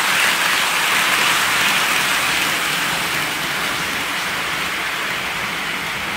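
OO gauge model freight train of tank wagons running past on the track: a steady rushing noise of the wheels rolling on the rails, easing slightly near the end as the last wagon goes by.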